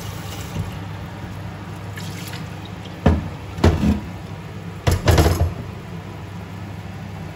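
Meat and a thin chilli-garlic sauce bubbling in a nonstick frying pan over a gas burner, a steady low simmer. A few loud knocks cut in about three seconds in and again around five seconds.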